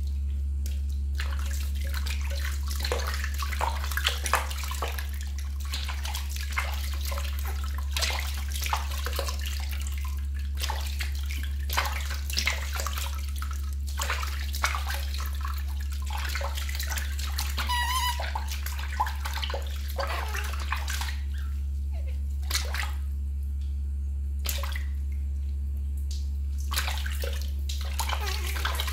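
Water splashing and sloshing in a stainless steel basin as hands wash and rinse a baby monkey, in many short splashes, over a steady low hum. One brief high squeak comes about two-thirds of the way through.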